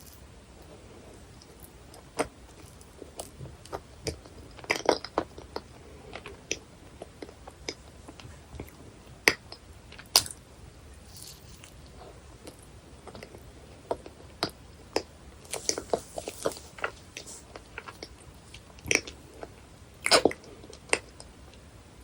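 Close-miked eating of a dense, fudgy cheesecake: chewing with wet, sticky mouth clicks at irregular intervals, and a few louder bites and smacks.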